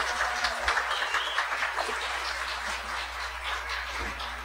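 Congregation applauding, the clapping slowly dying away.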